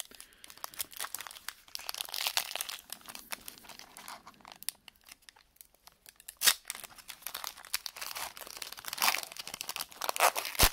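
Foil trading card pack being torn open by hand: the wrapper crinkles and tears in crackly bursts throughout, with one sharp loud tear about six and a half seconds in and more loud tearing near the end.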